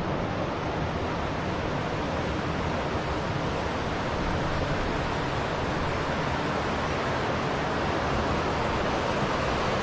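Steady rushing of a fast-flowing mountain river.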